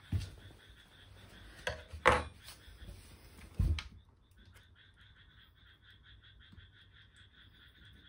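A few thumps and knocks on a wooden tabletop as tweezers are set down, the loudest about two seconds in. From about four seconds a frog croaks in a quick, even series of about five pulses a second.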